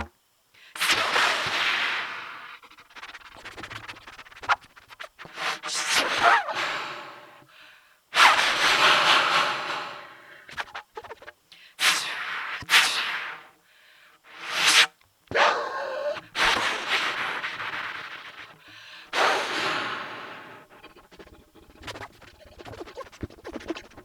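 Trumpet played with experimental techniques: a string of breathy, airy blasts through the horn with little clear pitch. Some swell for a second or two and others are short and sharp, with short pauses between them.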